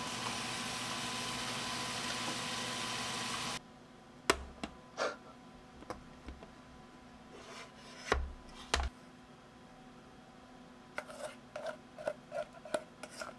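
Steak sizzling in a frying pan with butter and garlic, cutting off suddenly about three and a half seconds in. Then a few sharp knocks as an upturned bowl of rice is set down and pressed on a tray to mould it, and near the end a run of light clicks and taps as the bowl is lifted away and the rice handled.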